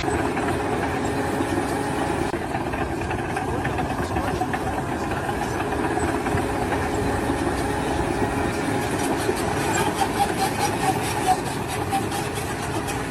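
An engine running steadily, with a run of light clicks starting about two-thirds of the way through.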